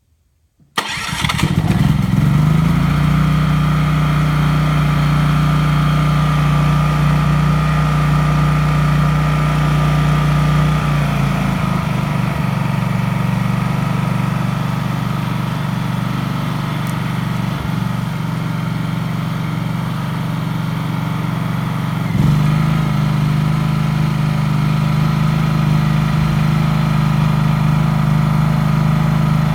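Baldor PC32Ri 3200-watt inverter generator starting up about a second in and settling into a steady run. Its engine speed steps down near the middle and back up again a few seconds before the end.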